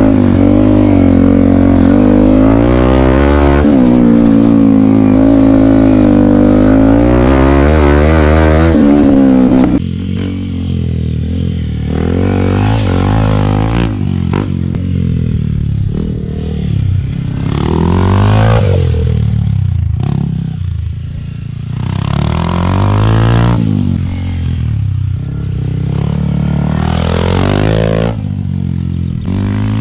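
Yamaha WR155R's 155 cc single-cylinder engine heard close up from the bike, revving up and down as it is ridden hard for about ten seconds. Then, after a sudden change to a quieter, more distant sound, a dirt bike's engine rises and falls several times as it rides along the dirt track.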